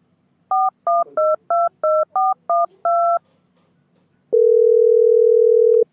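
Phone keypad touch-tones being dialed: eight quick two-note beeps, the last held a little longer. About a second later comes a single steady low tone on the line, lasting about a second and a half, as the call is placed.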